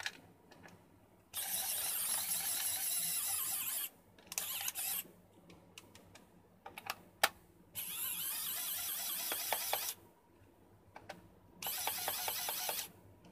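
Homemade electric screwdriver, a small N20 geared DC motor in a PVC tube, whirring as it turns screws in a plastic multimeter case. It runs in three spells of one to three seconds each, with a few short bursts and clicks in between.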